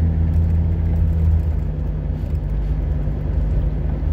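Car engine and tyre noise heard from inside the cabin while driving: a steady low drone that eases slightly about a second and a half in.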